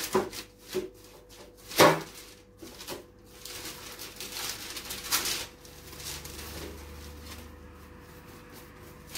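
Plastic cling film rustling as it is unrolled and wrapped around a lump of cookie dough. A few sharp knocks of handling come in the first two seconds, the loudest about two seconds in, and a longer stretch of rustling comes around the middle.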